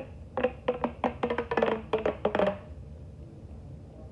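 Plastic pop tube fidget toy being stretched and worked by hand: a quick run of sharp, short-ringing plastic pops and clicks, thickest around the middle, stopping after about two and a half seconds.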